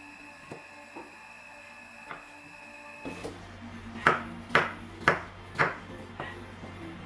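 A few faint taps, then four loud sharp knocks about half a second apart and a lighter fifth one: kitchen work such as chopping or pounding on a hard surface.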